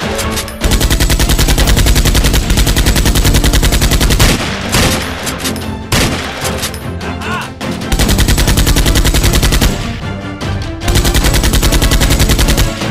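Automatic gunfire sound effect, three long rapid-fire bursts with short gaps between them, over background music. It is dubbed onto toy foam-dart blasters being fired.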